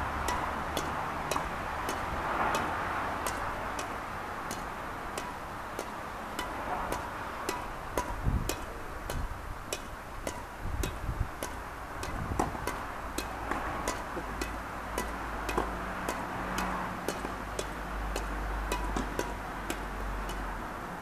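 Badminton rackets striking a shuttlecock in a fast, unbroken rally: a sharp tick of the strings roughly twice a second, at a steady pace.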